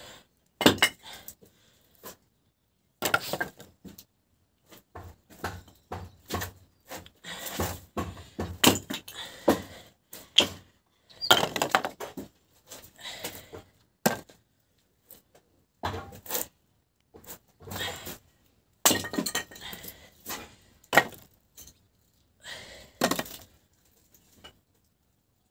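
Irregular clatter of objects being handled and struck: sharp knocks, cracks and clinks coming in quick clusters with short silent gaps between.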